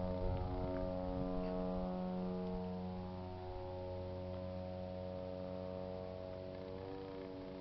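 Low-flying military aircraft droning overhead in the night sky, a steady chord of engine tones that slowly fades and shifts slightly in pitch near the end as it moves away.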